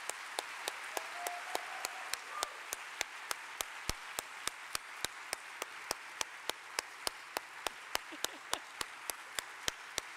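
Audience applauding, with a steady train of sharp clicks about four times a second running through it.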